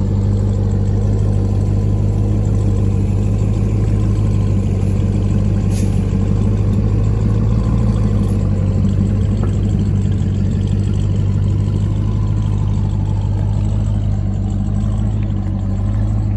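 2021 Ram 1500 TRX's supercharged 6.2-litre V8 running steadily at an even, low pitch as the truck crawls and flexes through an off-road articulation obstacle.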